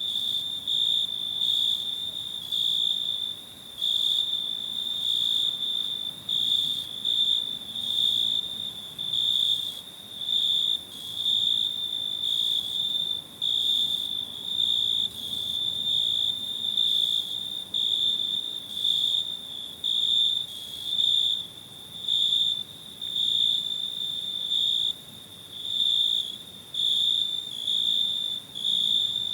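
Cricket chirping: a high, steady-pitched trill broken into pulses about once a second, continuing throughout.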